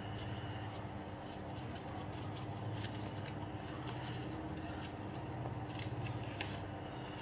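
Origami paper rustling and crinkling as it is folded and creased by hand, with a few sharp crackles, over a steady low background hum.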